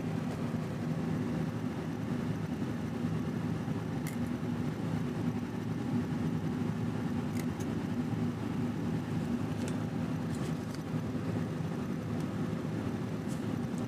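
Steady low mechanical hum, like a motor or engine running in the background, with a few faint short clicks.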